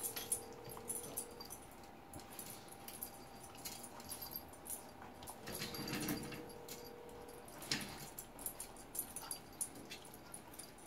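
Doberman playing rough with a Bengal cat: its metal chain collar clinks and jingles in irregular taps as it mouths and wrestles the cat. A thin steady dog whine is held for about two seconds around the middle, and briefly at the very start.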